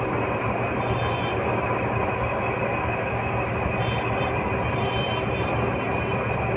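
Steady outdoor background noise: an even rumbling hiss with no distinct events, ending abruptly.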